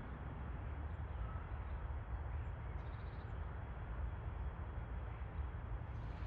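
Steady outdoor ambient noise, mostly a low rumble with an even hiss above it, and one faint short chirp about a second in.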